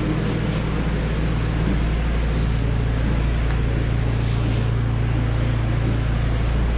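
Gas-engine pressure washer running steadily under load, with the hiss of its water spray as cleaning chemical is sprayed onto the surface.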